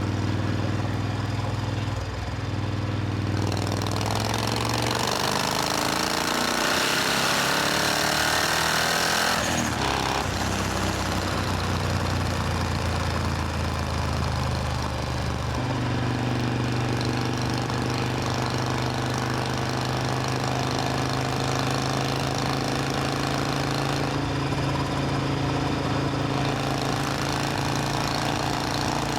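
Supercharged Triumph Thunderbird Storm parallel-twin engine running: its pitch climbs for several seconds as it accelerates, drops abruptly about ten seconds in, then holds steady.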